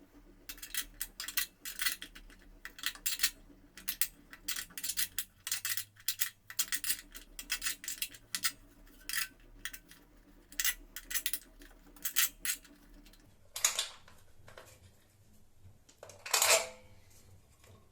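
Metal hardware and tools being worked by hand: quick irregular runs of sharp metallic clicks and clinks, with two longer scraping noises near the end.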